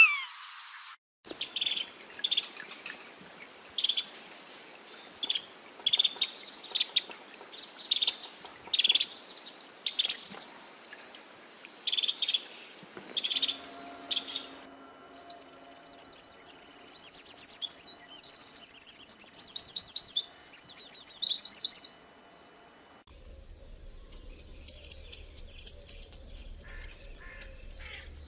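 Calls and songs of several small birds in turn: a high chirp repeated about once a second, then a continuous high warbling trill for several seconds, then after a short gap a quick run of high, falling whistled notes.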